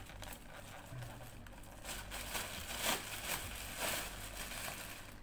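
Thin plastic carrier bag rustling and crinkling as its handles are untied and pulled open, in irregular crackles that grow louder about two seconds in.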